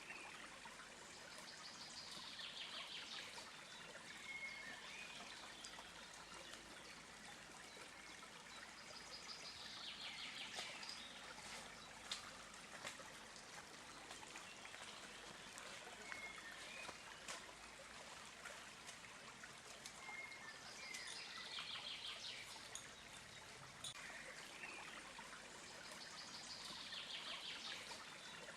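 Water trickling and flowing steadily, like a small stream. A bird sings a short phrase of high falling notes about every eight seconds, with brief single whistles in between.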